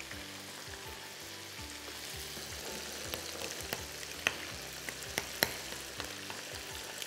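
Chicken fingers frying in sunflower oil with a steady sizzle. From about halfway, a utensil clicks sharply against a bowl several times while a sauce is stirred, loudest a little past four and five seconds.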